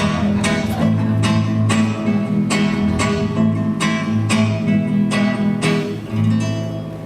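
Acoustic guitar strumming chords at about two strums a second, the last chord ringing out and fading near the end.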